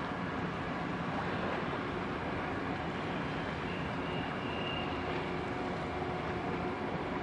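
Steady rumbling noise of tugboat engines working across the harbour water, with a faint high tone for about a second midway.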